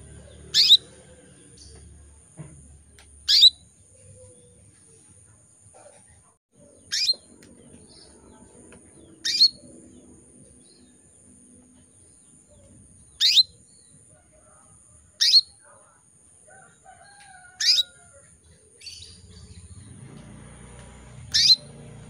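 Female domestic canary giving short, sharp calls, eight in all, each a quick downward-sweeping tweet, a few seconds apart. These are the calls of a hen in breeding condition calling to a male.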